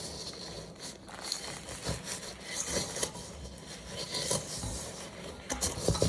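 Dry chocolate-crackle mix of crispy rice pops, desiccated coconut and cocoa powder being stirred in a bowl: an irregular scraping and rubbing with small ticks as the cereal is pushed around.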